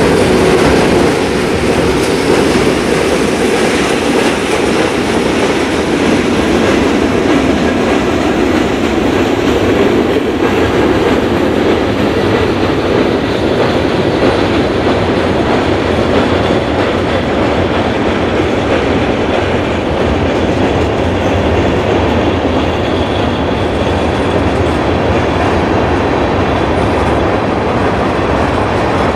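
Freight train's tank cars and covered hoppers rolling past at close range: a steady, loud rumble of steel wheels on the rails, with clacking as the wheels cross the rail joints.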